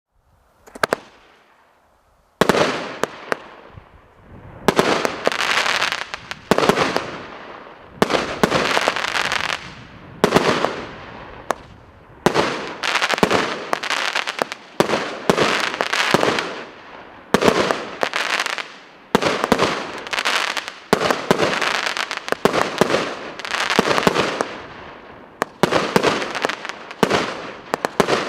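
Multi-shot consumer firework battery (cake) firing shot after shot, about one every one and a half to two seconds. Each shot is a sharp report followed by about a second of dense crackling as the shell bursts.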